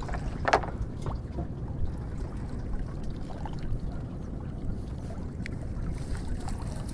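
Steady low rumble aboard a wooden fishing boat on the river, with a few light knocks and a brief faint voice about half a second in.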